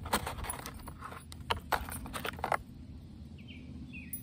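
Rustling and sharp clicks of fishing tackle and its plastic packaging being handled, for about two and a half seconds. Then a few short bird chirps over quiet outdoor background.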